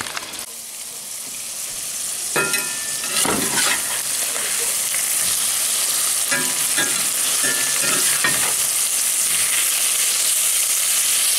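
Venison backstrap pieces sizzling in butter and olive oil in a cast-iron skillet, the hiss growing louder over the first few seconds. A spatula scrapes the pan and turns the meat in two spells, about two and a half seconds in and again around six to eight seconds.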